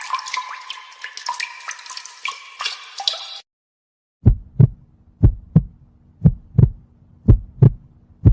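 Cartoon sound effects: a quick run of short, bright pitched notes for about three seconds, then after a pause a heartbeat effect, paired low thumps about once a second over a low hum.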